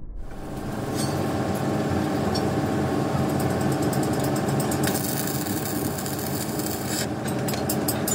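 Metal lathe running while a cutting tool turns down a spinning steel wheel rim: a steady machine drone with the scrape of steel being cut. Near the end a rapid, regular ticking comes in.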